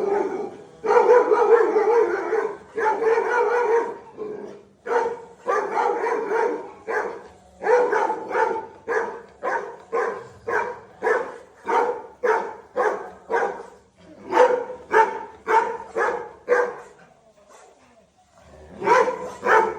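Labrador barking again and again: a few longer, drawn-out barks at first, then a steady run of short barks about two a second, broken by a pause of about two seconds near the end before it barks again.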